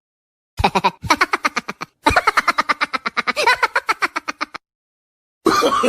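A laughing sound effect: two bursts of very fast, rattling staccato laughter, the second longer. Near the end a wavering, pitched voice-like sound begins.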